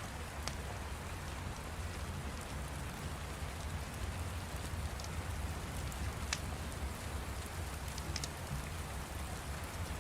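Steady rain with a low rumble underneath, and a few sharp pops from a crackling fire scattered through it.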